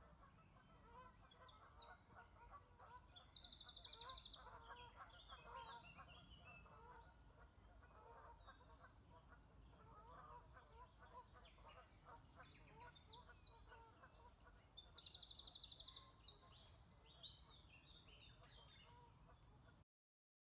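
A songbird singing two bouts of high, quick trilling song, about a second in and again around thirteen seconds in, over a faint steady background hum.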